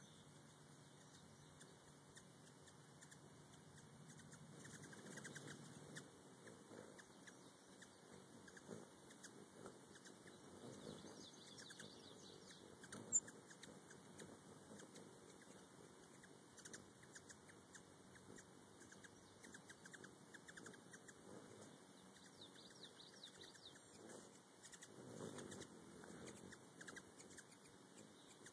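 Faint hummingbird chirps and squeaky twitters in short bouts, with the buzzing hum of their wings swelling as birds hover and chase close by. A single sharp click sounds about halfway through.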